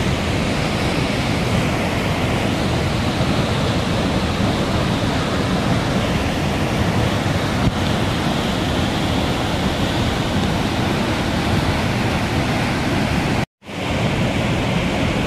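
Muddy floodwater rushing over a rocky ledge: a steady, dense roar of water that cuts out suddenly for a split second near the end.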